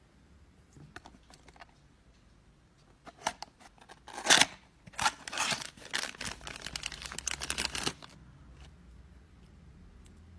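A few light clicks, then clear plastic packaging crinkling and rustling as it is handled for about five seconds.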